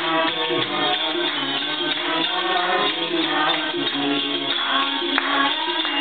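A woman singing a Hindu devotional bhajan, with shaken percussion keeping a steady beat.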